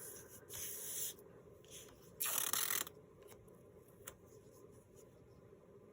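Paper pages being handled, with two brief brushing rubs of paper sliding over paper, the second louder, and a few light taps.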